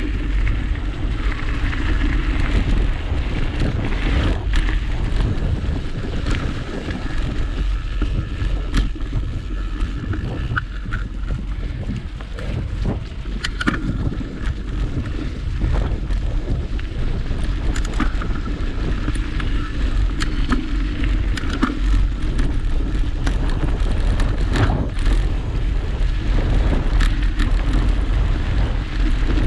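Wind buffeting a handlebar-mounted action camera's microphone as a mountain bike rolls along a leaf-covered dirt trail, with scattered clicks and rattles from the bike over bumps.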